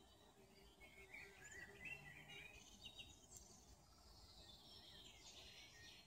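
Faint songbird twittering: a bright warbling phrase about a second in, then more high chirping near the end, over faint background noise.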